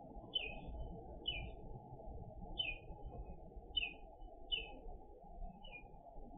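A bird chirping: six short, high chirps, each falling in steps, spaced about a second apart, over a steady low hiss.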